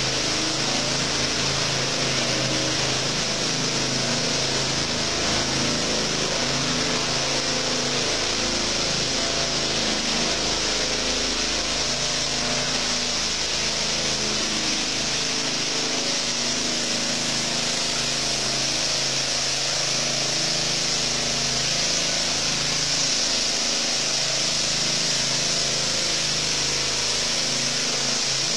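Floor-screeding machinery running steadily: an engine's even hum under a constant hiss.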